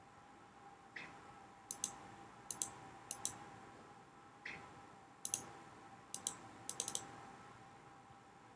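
Computer mouse clicking: sharp, light clicks, mostly in quick pairs and threes, spread over several seconds.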